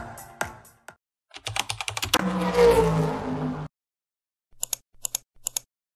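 Sound effects of an animated channel intro: a rapid run of typing-like clicks that swells into a louder, fuller sound with a low hum, cutting off abruptly, then four short sharp clicks near the end. Electronic dance music fades out in the first second.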